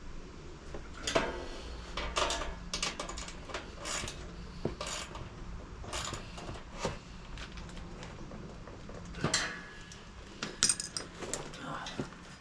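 Irregular metallic clinks and clatters of small hardware and hand tools being handled while M5 nuts and bolts are fitted to assemble a parcel shelf.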